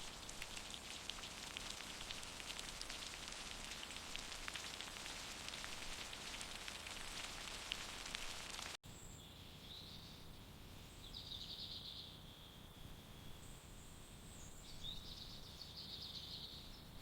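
A faint, steady crackling hiss for about nine seconds. It cuts off abruptly, and high chirping calls come and go over quiet outdoor ambience.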